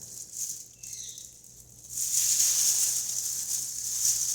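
Scratchy, rustling handling noise from working the teardown parts, setting in about halfway through and running on steadily over a faint low hum.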